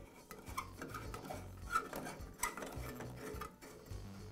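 A light bulb being screwed into the socket of a NuTone vent-fan-heater: faint scraping as the bulb threads in, with a few light clicks, the two sharpest about a second and a half and two and a half seconds in.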